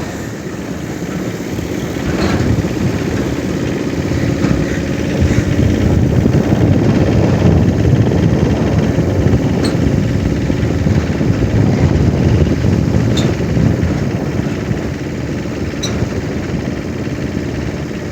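Engine and road noise of a moving vehicle. It grows louder through the middle and eases off near the end.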